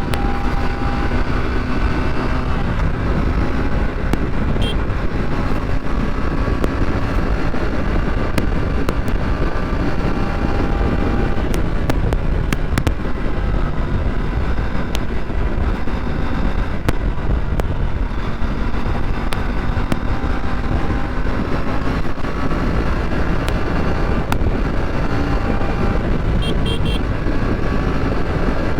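Aprilia RS 457's parallel-twin engine running under way, its note drifting up and down with the throttle, over heavy wind noise on the microphone.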